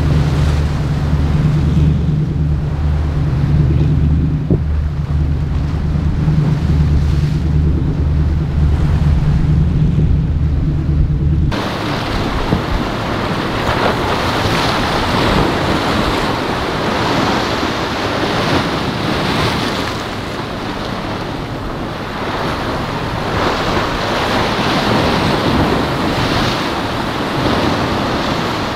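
Boat engine running with a low, pulsing drone for the first eleven seconds or so, then an abrupt change to waves and surf with wind buffeting the microphone.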